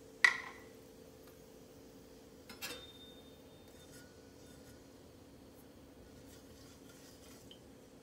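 Metal spatula clinking against a metal wok. A sharp clink comes about a quarter second in, with a brief ring, and a softer clink about two and a half seconds in, followed by faint light scrapes. A low steady hum runs underneath.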